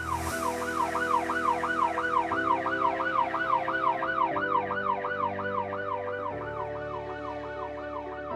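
Ambulance siren on a fast yelp, its pitch sweeping up and down about three times a second, over steady background music. It opens with a brief whoosh.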